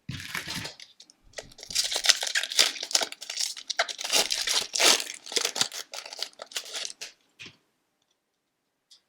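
A hockey card pack wrapper being torn open and crinkled: irregular crackling and tearing that stops about seven and a half seconds in.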